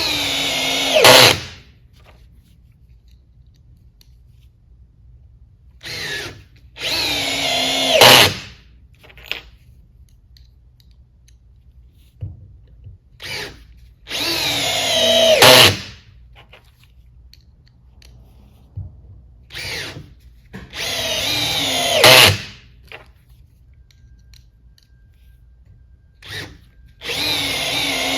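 Cordless drill on low speed driving T25 Torx screws into wood, four screws about seven seconds apart. The motor's pitch sinks as each screw seats, and each run ends in a short loud burst as the clutch, set at 15, engages and slips.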